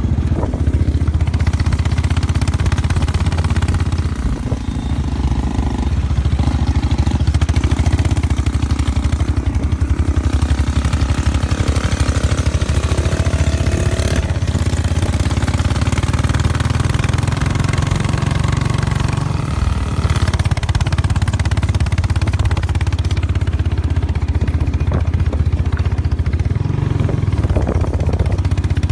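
Motorcycle engine running steadily as the bike is ridden along a rough dirt road.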